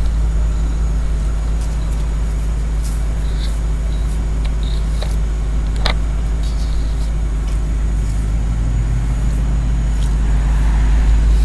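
1959 Cadillac's 390 cubic-inch overhead-valve V8 idling steadily, with a few sharp clicks over it.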